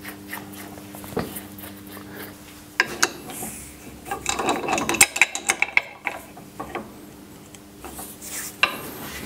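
Metal clicking and rubbing as a nut is threaded by hand onto the end of a horizontal milling arbor stacked with cutters and spacers. There is a busy run of quick clicks in the middle.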